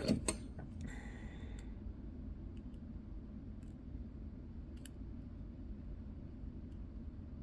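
Small metal watch tools and movement parts clicking as they are handled: a few sharp clicks at the start, a brief scrape about a second in, then faint scattered ticks, over a steady low hum.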